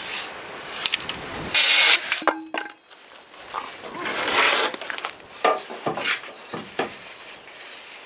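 Woodworking noise: scattered knocks, clicks and scraping of wood being handled, with two louder rushing bursts of noise, one about a second and a half in and a longer one around four seconds in.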